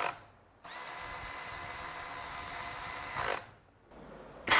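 Cordless drill-driver with a socket running down the oil pump bolts on an A8LF2 automatic transmission case in two steady whirring runs, the second rising briefly as the bolt seats. A single sharp click comes near the end.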